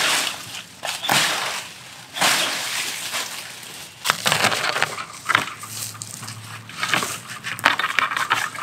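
Dry dead leaves and brittle twigs crunching and rustling as a tangled mass of leaves and old netting is dragged off a fence, turning into rapid snapping and crackling about halfway through.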